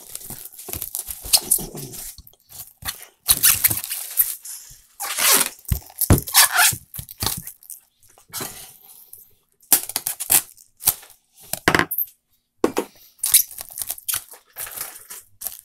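Food wrap being pulled, torn and crinkled in irregular loud crackling bursts as the seasoned lamb is covered.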